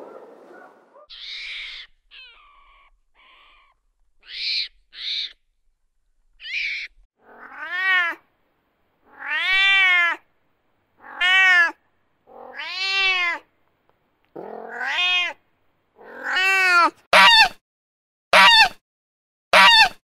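Cat meowing repeatedly, with a pause between calls. Each meow rises and falls in pitch. The first few calls are short and breathy, and near the end the meows come shorter and quicker, about once a second.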